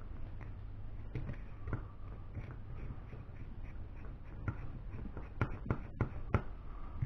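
Small parts and hand tools clicking and tapping on a workbench while a steering bellcrank assembly is put together, with a quick run of sharper clicks about five to six seconds in.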